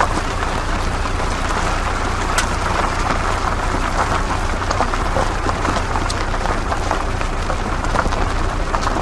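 Off-road 4x4 vehicle moving over rough ground: a steady rush of tyre and terrain noise with many small clicks and rattles over a low engine rumble.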